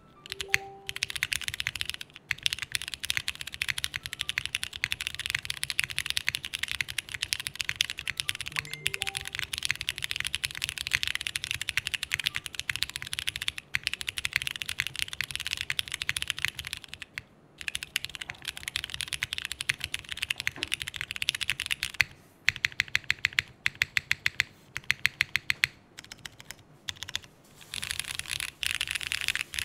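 Fast, steady typing on a 60% mechanical keyboard with vintage Cherry MX Brown switches on a polycarbonate plate, GMK keycaps and 30A O-rings: a dense stream of keystroke clacks with brief pauses. About three quarters of the way through comes a run of rapid, evenly spaced key presses.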